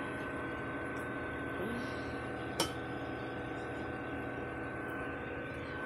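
Steady room hum with a constant thin high whine, broken by one sharp click about two and a half seconds in.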